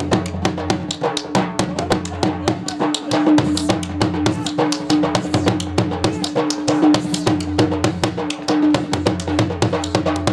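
Dhol drum beaten in a fast, even Punjabi dance rhythm of dense strikes, with a steady drone held underneath.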